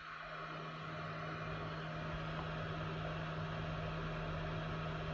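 Hot air rework gun's fan blowing a steady airy hiss over a low electrical hum, swelling over the first second or so and then holding steady. The gun keeps blowing with its handle in the stand, cooling down rather than shutting off.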